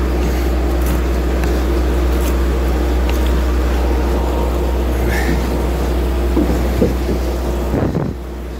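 A fishing trawler's engine running with a steady low drone; the sound drops noticeably shortly before the end.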